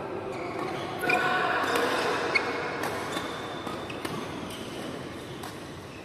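Scattered sharp racket-on-shuttlecock hits from badminton play on nearby courts, echoing in a large sports hall, with faint voices.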